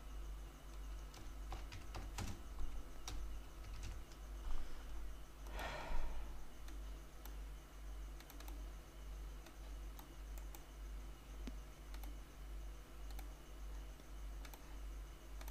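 Computer keyboard keys being typed and mouse clicks: scattered single keystrokes with a quick run about two seconds in. There is a short breathy rustle around six seconds, all over a steady low electrical hum.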